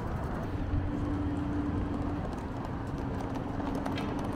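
Steady city traffic noise from a road beside a bridge, with a faint steady hum running through it and a few light clicks near the end.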